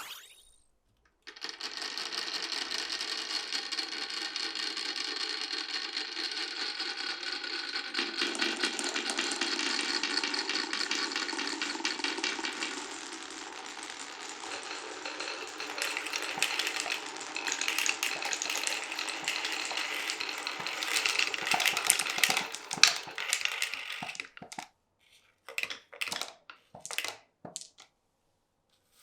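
Marbles rolling and clattering down a marble run, a dense continuous rattle of rapid clicks and ringing rolls that starts about a second in. Near the end it breaks up into a few separate clacks before stopping.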